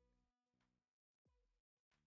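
Very faint background music with low bass notes and held tones, cutting out briefly twice in the middle.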